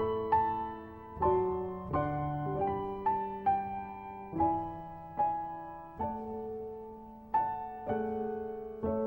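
Soft piano score: chords and single notes struck at a slow, unhurried pace, each one left to die away before the next.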